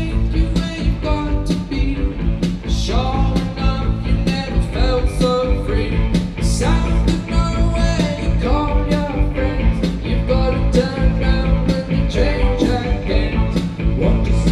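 A rock band playing live: a steady drum beat with regular cymbal and snare hits under electric guitar, bass guitar and keyboard.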